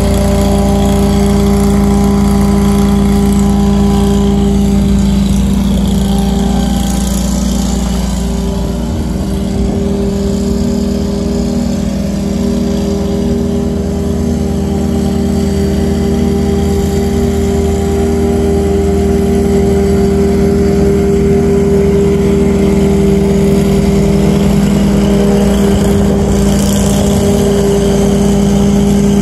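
Walker C19 zero-turn mower's engine running steadily at a constant pitch while mowing.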